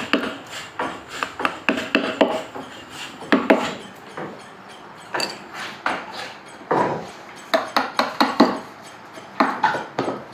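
Wood-carving chisels clinking against one another and knocking on a solid akash moni (acacia) wood panel as they are handled and used: an irregular string of sharp taps and clinks, some with a brief metallic ring.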